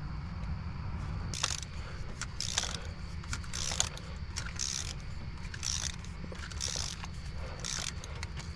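Hand ratchet wrench clicking in short strokes, about once a second, over a steady low hum.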